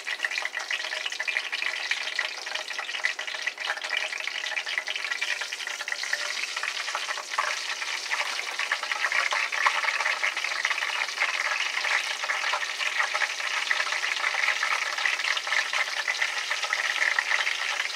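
Flour-dredged sea scallops sizzling and crackling in shallow hot oil in a frying pan, louder from about eight seconds in as more scallops are added.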